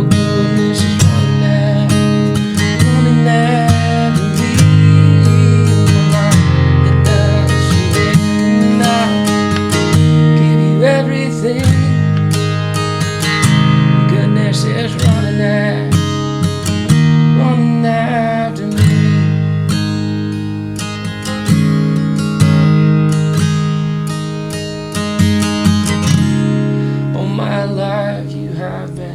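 Martin D-18V mahogany-and-spruce dreadnought acoustic guitar being strummed, chords changing every second or two as it plays through a worship-song progression.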